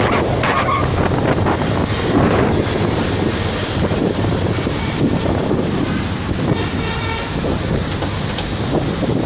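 Wind buffeting the microphone over the steady rumble of road traffic from a moving vehicle. A horn sounds faintly about seven seconds in.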